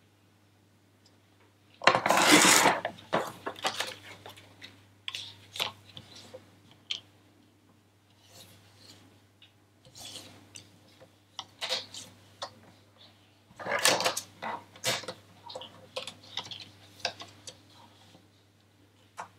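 Sliding-blade paper trimmer drawn along its rail, cutting through a laminated sheet twice: about two seconds in and again about fourteen seconds in. Between the cuts there are scattered clicks and rustles as the stiff laminated card is turned and lined up on the trimmer bed.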